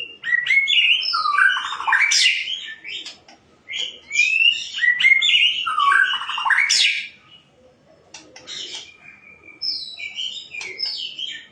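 Shama singing: two loud, varied phrases of rich gliding whistles and rapid note runs, then softer, scattered whistled notes in the last few seconds.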